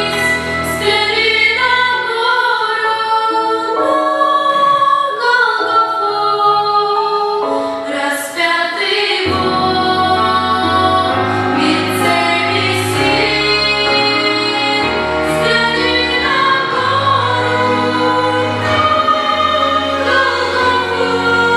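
A women's vocal group singing a Christian song in harmony with accompaniment; the low bass part drops out for several seconds, then comes back in about nine seconds in.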